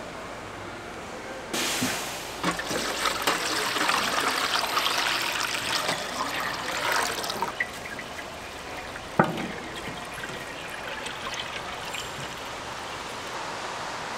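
Battered food deep-frying in hot oil. A loud crackling sizzle starts suddenly about a second and a half in, then settles to a quieter, steady sizzle about halfway through, and a single sharp knock comes about two-thirds of the way through.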